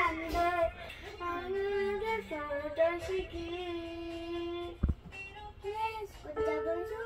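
A young girl singing in long held notes while playing a children's digital piano. A single dull thump comes about five seconds in.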